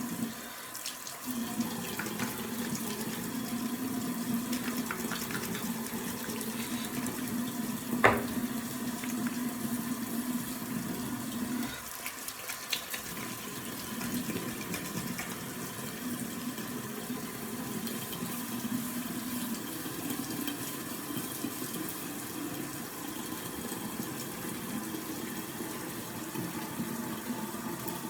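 Tap water running steadily, broken briefly twice, while hair is washed with a bar of soap. One sharp knock about eight seconds in.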